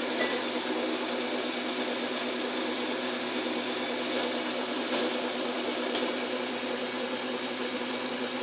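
Metal lathe running steadily, its tool cutting a metal shaft spinning in the chuck, over a constant motor and gear hum.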